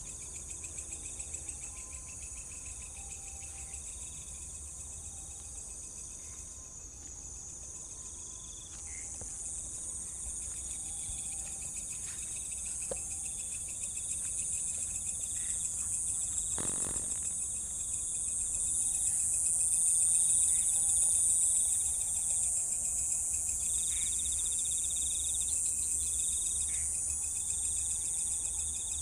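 Chorus of night insects: crickets trilling in short repeated phrases over a steady high buzz. A single knock sounds about halfway through.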